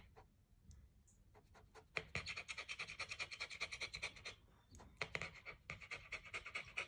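Dog panting rapidly, close up: a few scattered breaths at first, then two runs of fast panting at about nine breaths a second with a short break between them.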